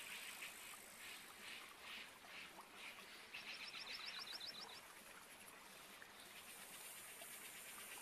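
Faint rainforest soundscape of calling insects and frogs: soft calls pulsing about twice a second, a quick run of about ten high chirps a little past the middle, and a steady high insect hiss that swells near the end.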